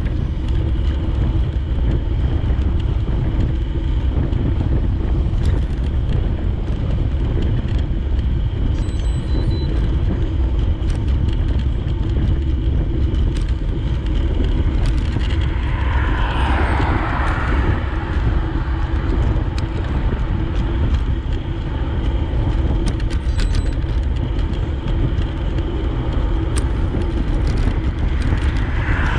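Steady low rumble of wind and road noise on a microphone carried along a road by bicycle. A vehicle swells past about 16 seconds in, and another near the end.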